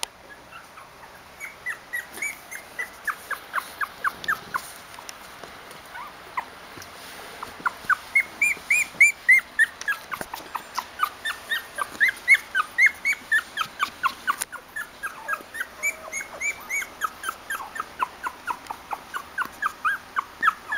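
Sixteen-day-old cocker spaniel puppies whimpering: short, high squeaks, several a second, in runs with brief gaps.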